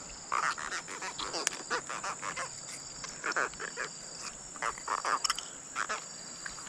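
Irregular short animal calls, each a fraction of a second long, over a steady high-pitched insect drone.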